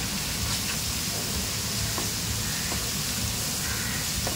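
Hot oil sizzling steadily in a pan as onions, tomatoes, green chillies and curry leaves fry, with a couple of faint light ticks about midway.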